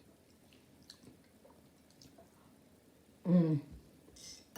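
Quiet, soft chewing and small mouth clicks while eating. A brief voiced sound, like a short hum or the start of a word, comes about three seconds in.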